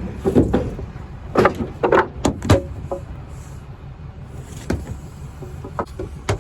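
Wooden boards knocking and clattering against each other as lumber is handled and stacked: a run of sharp knocks in the first few seconds and a few more near the end, over a low steady rumble.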